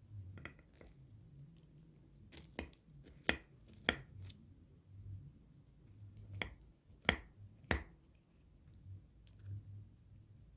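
Metal knife cutting through baked eggplant parmigiana and clicking sharply against a glass baking dish, about eight separate clicks in loose groups, the loudest near the middle.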